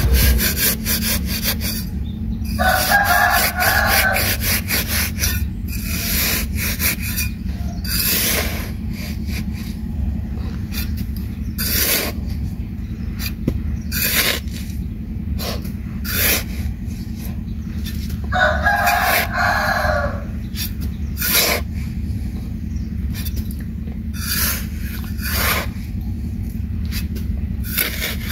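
A rooster crows twice, about three seconds in and again near the twenty-second mark, each crow lasting about a second and a half. Behind it come repeated, irregular scraping strokes on wood over a steady low hum.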